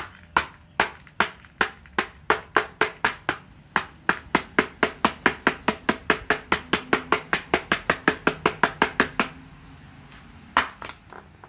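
A rock striking an iPhone 4 over and over in a fast run of sharp knocks, about forty blows that quicken to four or five a second, then stop. Two more blows follow near the end.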